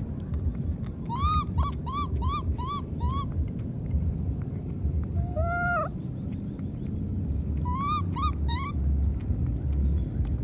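Baby monkey calling: a quick run of about six short, arched chirps, one longer call a little past the middle, then three more chirps near the end, over a steady low rumble.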